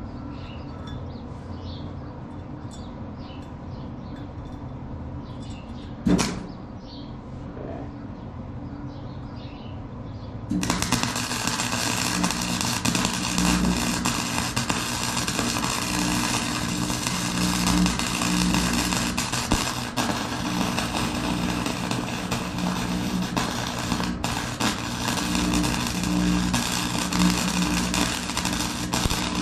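A steady low hum with a single sharp click about six seconds in, then about ten seconds in a Forney FC125 flux-core welding arc strikes and keeps going as a dense, steady crackle.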